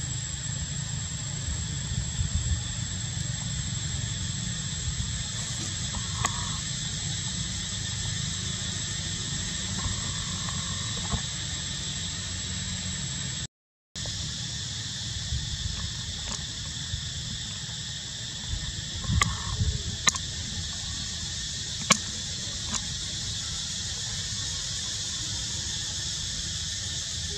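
Steady high insect drone in the trees over a low rumble, with a few short squeaks about six, ten and nineteen seconds in. The sound drops out for a moment about halfway through.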